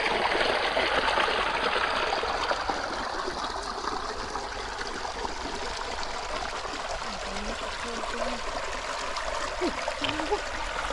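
Shallow stream water running and trickling over a small dam of sticks and grass, a steady rushing sound that eases a little after a few seconds.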